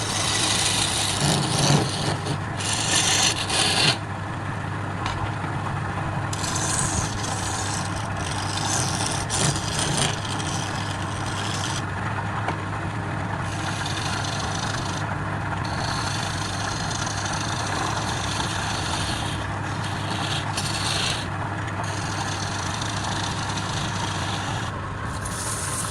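Wood lathe running with a steady hum while a tool or abrasive scrapes and rubs against the spinning wood. The rubbing is loudest in the first few seconds, then comes and goes in spells of a few seconds.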